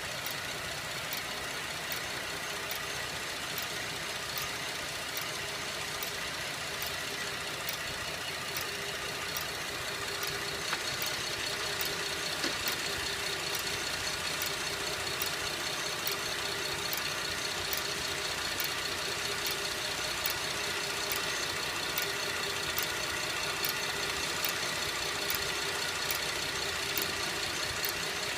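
2011 Buick LaCrosse CXL engine idling with a slow, regular metallic tick about once a second, slower than the engine's own running rhythm.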